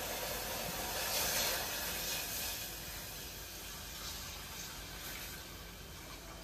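Pan of tea on the stove hissing and sizzling steadily. It swells slightly in the first couple of seconds, then fades slowly.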